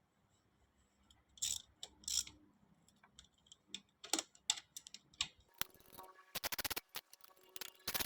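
Ratchet wrench clicking in quick runs while a fastener is tightened, among scattered sharp metallic clicks and knocks of tools and parts.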